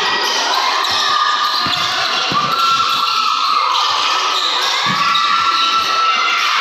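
Basketball bouncing on a hardwood gym court during live play: several thuds at irregular spacing, echoing in a large hall with voices in the background.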